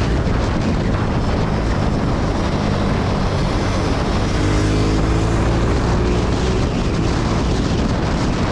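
Suzuki Gixxer 250's single-cylinder engine running steadily under way, with wind rushing over the microphone. Midway a second, higher engine note joins for about two seconds.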